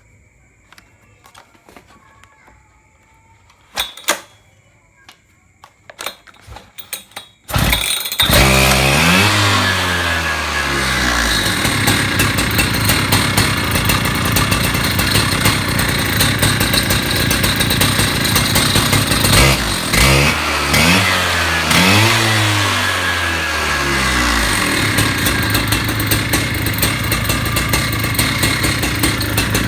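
A few knocks, then a Husqvarna petrol concrete cut-off saw's two-stroke engine starts about seven seconds in and runs loudly. It is revved twice, and each time the pitch falls back as the engine settles.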